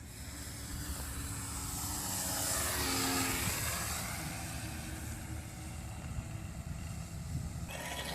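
Electric radio-controlled model airplane flying past, its motor and propeller whine loudest about three seconds in and dropping in pitch as it goes by.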